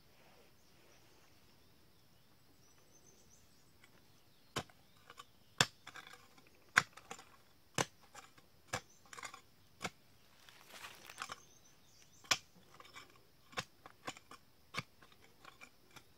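A hand digging tool chopping into dry, clumpy earth: sharp strikes about once a second beginning about four seconds in, with a scraping rustle of loosened soil around the middle. A faint steady insect buzz lies underneath.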